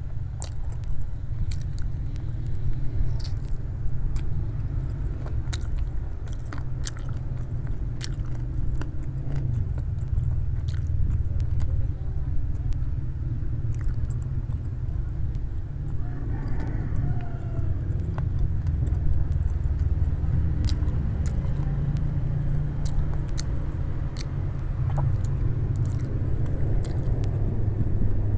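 Close-up chewing and biting on fried chicken, with scattered small crunches and mouth clicks, over a steady low rumble.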